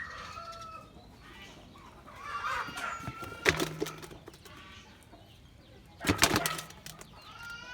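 Short high-pitched animal calls, heard three times, with two loud bursts of clatter in between, about three and a half and six seconds in.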